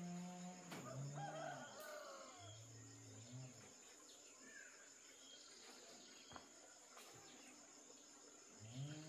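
Faint roosters crowing, several long drawn-out crows, over a steady high-pitched insect trill.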